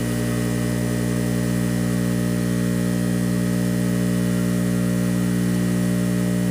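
The vibratory feeder pan of a Logical Machines S-5 bulk weigh-fill scale runs at high feed, about 90% power, during the bulk stage of a fill. It makes a loud, steady electric hum with many overtones as chicken meal pours off the pan into the bucket.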